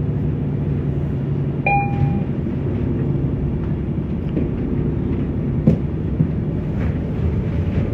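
Interior of a moving city transit bus: a steady engine and road rumble with a low drone. A short electronic beep sounds about two seconds in, and a single sharp knock near six seconds.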